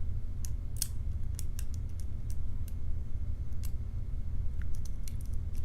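Lock pick working the pins of a custom padlock, with the tension wrench set in the bottom of the keyway: scattered light metallic clicks and scrapes, irregularly spaced, over a steady low hum.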